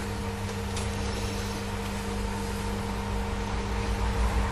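Steady machine hum, several fixed tones over a low rumble, with a faint click about a second in; the low rumble grows louder near the end.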